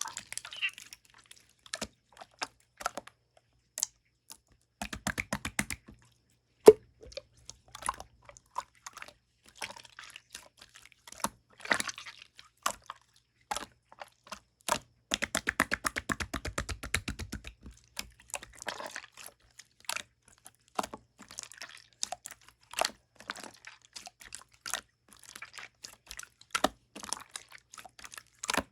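Clear pink slime being squeezed and pressed by hand, with sharp clicks and pops of trapped air. There is a short run of rapid popping about five seconds in and a longer one in the middle.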